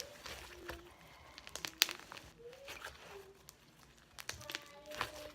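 Slime being stretched and pulled apart in the hands, giving scattered sharp clicks and crackles, the loudest about two seconds in; the slime has turned rubbery and is tearing.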